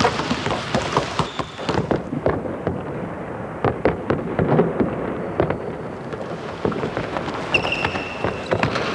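Basketball practice in a large arena: balls bouncing on the hardwood court and sneakers squeaking, heard as a dense, irregular run of thumps and knocks with a few short high squeaks.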